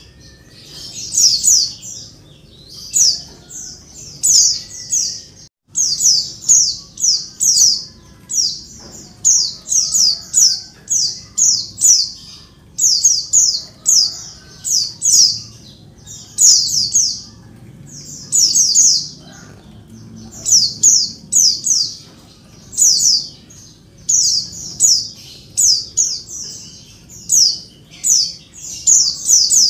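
Female white-eye (pleci) calling noisily: bursts of several rapid, high-pitched, downward-sliding chips, repeated every second or two, with a very brief break about five and a half seconds in. These are the calls of a female summoning males.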